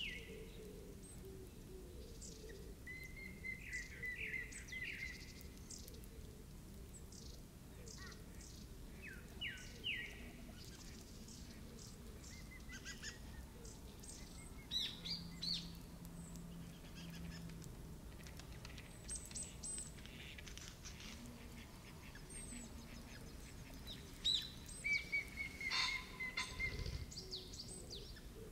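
Wild birds chirping and calling: scattered short high chirps, quick falling notes and a few brief trills over a faint steady hiss, busiest near the end.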